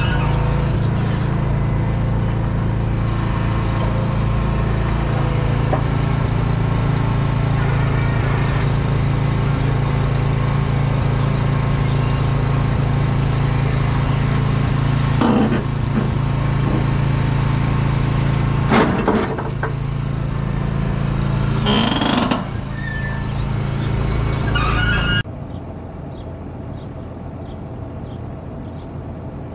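Heavy diesel engine running steadily close by, with a few short sharp hisses or squeals over it. About 25 seconds in it cuts to a quieter, more distant engine sound.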